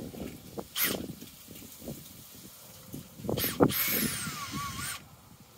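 Cordless drill spinning for about a second with a whine that slides in pitch, used to back out a screw from a plastic dashboard switch bracket. A few short knocks and clicks come before it.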